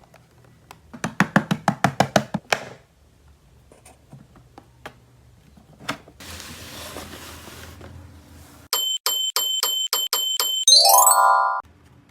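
Electronic toy sound effect: a quick run of sharp beeps, then a short rising jingle, the loudest sound here. Before it come a rapid series of plastic clicks and a burst of rustling from the toys being handled.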